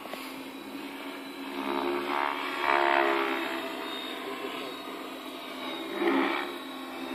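Align T-Rex 550E electric RC helicopter in flight overhead: its rotor and brushless motor give a steady whine that swells louder about two to three seconds in and again around six seconds, as the helicopter manoeuvres.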